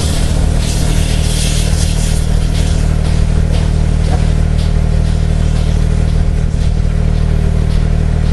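A steam-hauled train running, heard from an open carriage window: the steady running noise of the carriages behind a GWR 57xx pannier tank locomotive, mixed with loud wind rumble on the microphone.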